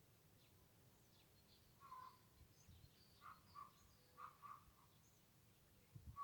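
Faint yard ambience in which a chicken gives short clucking calls: one about two seconds in, two pairs in the middle and another near the end. Small birds chirp faintly and high in between.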